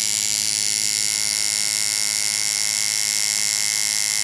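Tattoo machine running with a loud, steady electric buzz as the needle is set to the skin.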